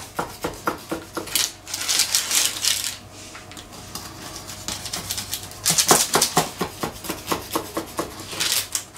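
Large kitchen knife cutting through a baked crumble-topped cake, with the crunch of the crisp crumble and repeated knocks and scrapes of the blade on the wooden cutting board. The cutting comes in two louder stretches with a quieter spell between them.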